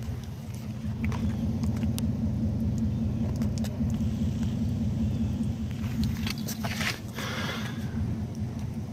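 Johnson 200 hp two-stroke V6 outboard idling steadily out of the water, water spraying from its lower unit. A few light clicks and a brief hiss come about two-thirds of the way through.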